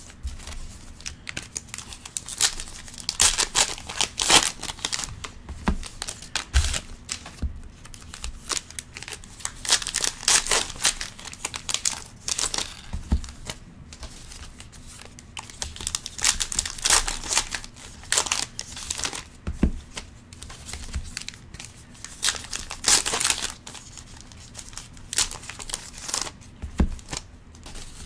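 Foil wrappers of 2019 Topps Allen and Ginter trading-card packs being torn open and crinkled in the hands, in repeated spells of crackling, with cards riffled through between them. A few soft thumps, several seconds apart, break in now and then.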